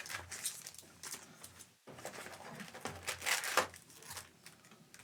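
Trading card packs and cards being handled: light, irregular rustling and crinkling of wrappers and card stock, loudest about three seconds in.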